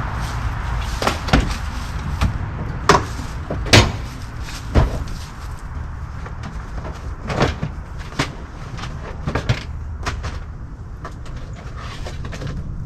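A string of separate sharp knocks and clatters, several a few seconds apart and loudest about three to five seconds in, over a steady low rumble: gear being handled while a meal is set up for the grill.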